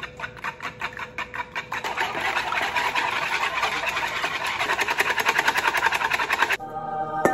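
Metal whisk beating pancake batter by hand in a plastic bowl: a quick rhythmic clicking and scraping that speeds up about two seconds in and cuts off abruptly near the end, where background music starts.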